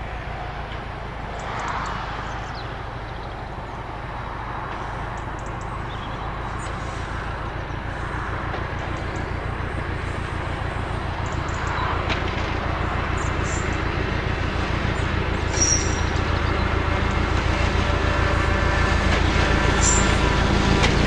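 Diesel locomotive hauling a train of coaches towards the listener, its engine getting steadily louder as it approaches. A higher-pitched whine joins the engine sound near the end.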